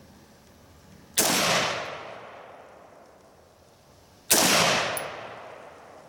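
Two rifle shots from an Armalite SPR Mod1 AR-15 in 5.56 mm, about three seconds apart, each dying away over a second or so.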